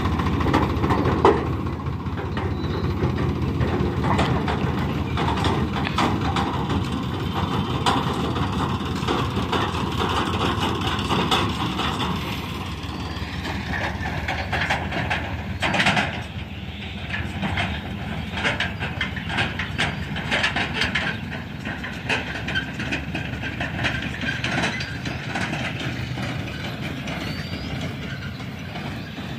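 Small tractor's diesel engine running with a fast, regular beat, louder for the first twelve seconds and quieter after as the tractor pulls away. A single sharp knock about sixteen seconds in.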